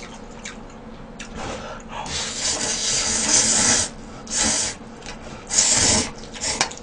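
A man slurping noodles from a bowl: one long slurp of nearly two seconds starting about two seconds in, then two short slurps.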